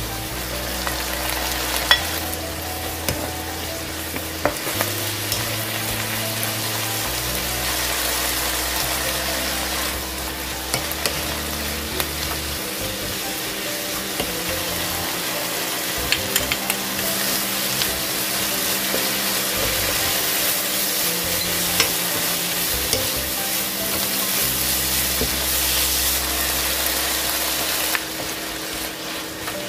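Garlic scapes, garlic and dried anchovies sizzling as they are stir-fried in a hot nonstick pan, with a wooden spatula scraping and clicking against the pan as it tosses them.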